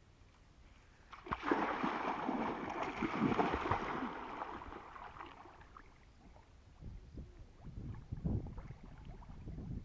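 Water splashing: a loud rush of splashing starts about a second in and fades away over a few seconds, followed by lighter, scattered sloshes.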